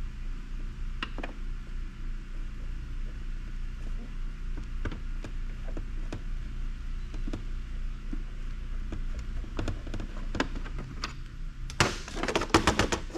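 A hand screwdriver working at small Phillips screws in a watch winder's case: faint scattered clicks and scrapes of the bit on the screws and plastic, over a steady low hum. Near the end comes a burst of louder knocks and clatter as the case is handled. The screws are stuck and will not turn out.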